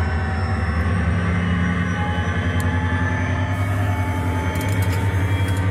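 Steady low mechanical rumble with a constant hum, like a large engine or machine running, with a few faint clicks near the end.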